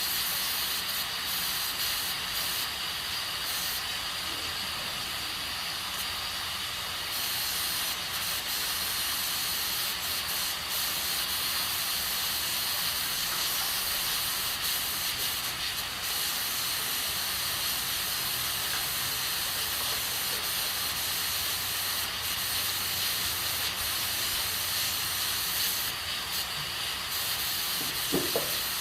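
Aluminium pressure cooker cooking beans on a gas stove, steam hissing steadily from its valve. A brief squeak comes near the end.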